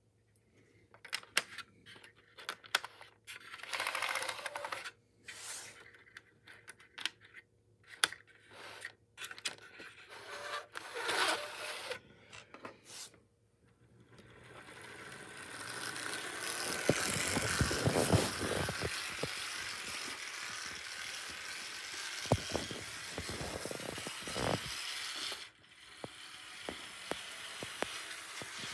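Clicks and scrapes of an HO-scale Athearn Blue Box GP60 locomotive being set onto the plastic track. About halfway through, its electric motor starts and it runs along the track with a steady mechanical noise, with a few sharp clicks.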